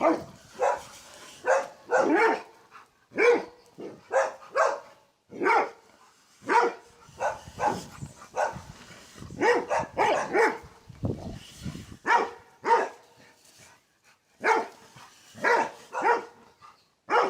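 Dog barking repeatedly in short barks, about one or two a second, with brief pauses between runs.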